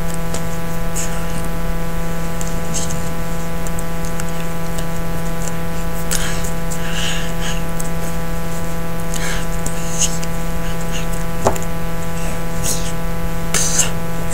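A steady electrical hum and buzz, made of many even tones, with faint short clicks and hissy breath or mouth sounds scattered through it.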